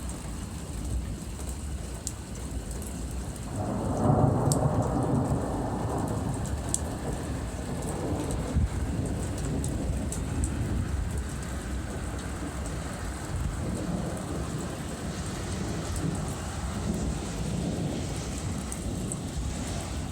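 Thunder rolling during rain: a long rumbling peal swells up about four seconds in and slowly dies away, over steady rain with scattered sharp drop ticks.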